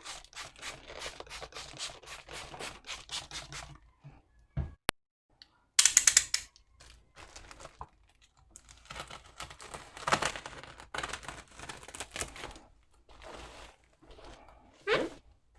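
Packaging being handled and opened: rapid rustling and crinkling of plastic wrapping with tearing, and a few louder rips and clicks.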